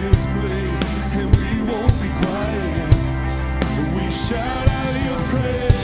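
Live worship band playing a contemporary worship song: male and female voices singing over drum kit, acoustic and electric guitars and keyboard, with a steady kick-drum beat.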